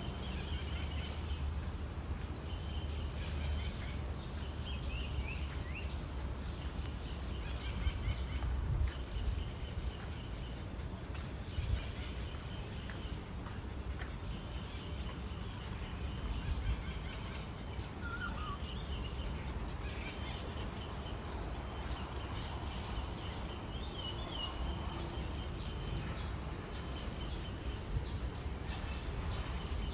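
Cicadas droning in a steady, high-pitched chorus that never breaks. Short bird chirps come in now and then beneath it.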